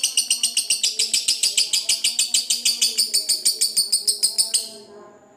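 Lovebird giving a long ngekek: a fast, even chatter of high, harsh notes repeated about ten times a second, which stops abruptly near the end.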